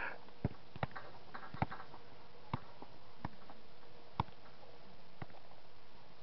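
A football being juggled: about seven short, dull thuds of touches on the ball, unevenly spaced, roughly one a second or a little faster.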